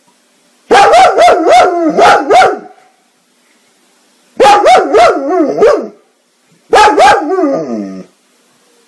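German Shepherd barking in three bursts of quick, yowling barks. The last burst trails off in a falling whine.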